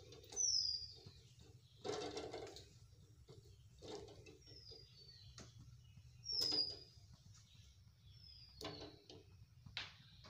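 Potato chunks dropped into a metal pot of eggs and water, landing with about four dull knocks. A bird calls between them with short, high falling whistles. A low steady hum runs underneath.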